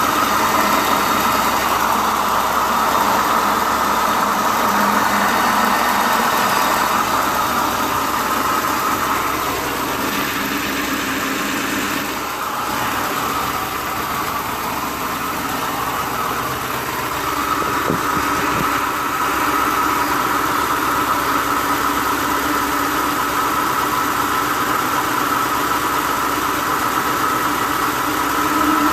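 2005 Ford Crown Victoria Police Interceptor's 4.6-litre V8 running with a horrible sound that grows with engine RPM. The level dips for several seconds about a third of the way in, then comes back.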